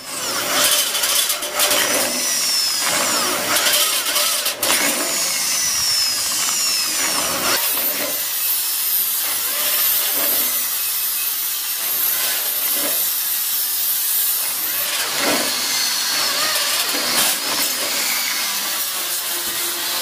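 Electric hand drill boring vent holes one after another through a sheet-metal amplifier case. The motor runs steadily while the bit cuts the metal, with high squeals falling in pitch.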